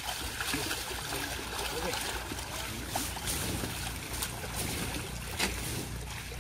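Splashing and sloshing in shallow muddy water as people wade through a netted fish enclosure, in scattered short strokes over a steady low rumble, with faint voices.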